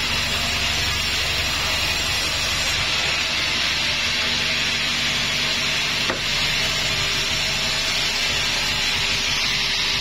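Vertical band sawmill running steadily, its blade sawing lengthwise through a wadang wood log to take off a plank, with a steady hiss over a low motor hum.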